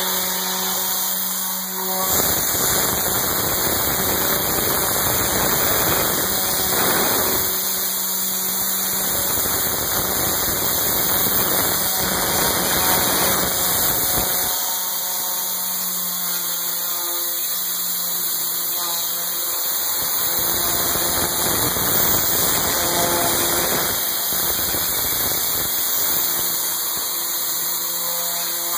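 8,000-watt steam washer spraying a continuous hiss of steam and hot water, with a steady hum underneath. The spray sounds fuller and deeper in stretches, from about two seconds in to about fourteen seconds in, and again briefly near twenty-four seconds.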